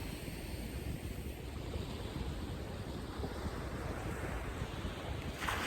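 Sea surf washing on the shore, with wind rumbling on the microphone; a louder wave rushes in near the end.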